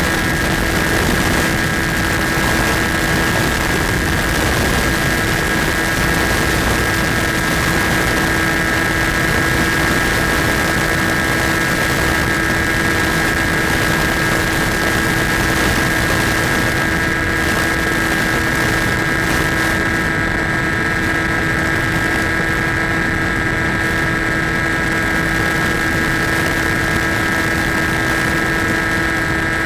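Electric motor and propeller of a Skywalker FPV model plane running at a steady, unchanging pitch in flight, over a rushing haze of air noise. The high end of the noise eases off about two-thirds of the way in.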